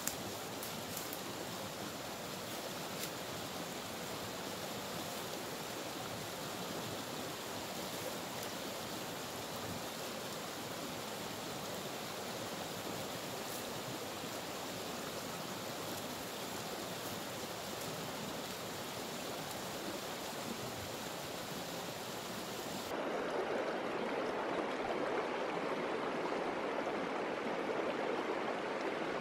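Small rocky stream rushing steadily over rapids and stones. About two-thirds of the way through it jumps louder and fuller, heard right beside the water.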